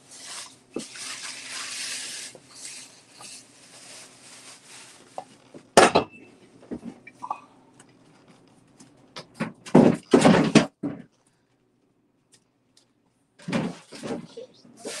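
Metal pots and pans clanking as they are handled, after a few seconds of hissy rustling. There is one sharp clank about six seconds in and a louder burst of clattering around ten seconds.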